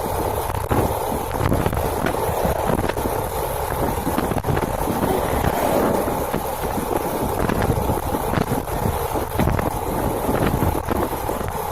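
Wind buffeting the microphone over the steady rumble of a small motorcycle underway.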